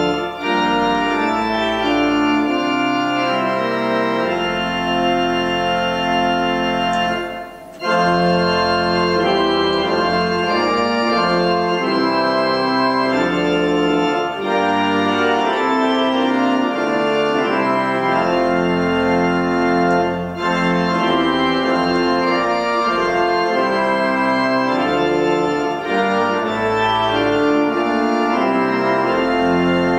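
Organ playing a hymn tune in sustained full chords with deep bass notes. It breaks briefly at the end of each phrase, with the longest break about seven and a half seconds in.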